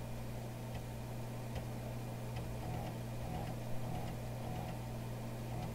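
Floppy drive of a Commodore PC 10-II ticking faintly and irregularly as it reads the PCturbo boot disk, over the steady hum of the running computer.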